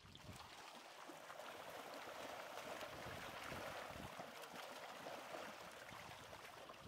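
Many fish thrashing and splashing in shallow water inside the pocket of a drag net as it is hauled in: a dense, continuous splashing that builds to its fullest about halfway through.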